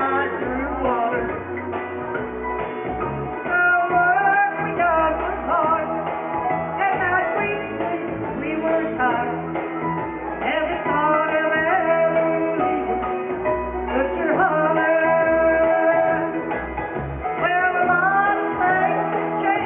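A woman singing karaoke into a microphone over a recorded backing track with a bass line.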